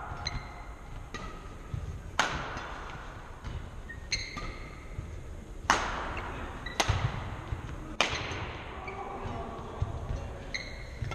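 Badminton rally: rackets striking the shuttlecock in a string of sharp cracks, each echoing around a large gym hall, with short squeaks of shoes on the hardwood court between hits.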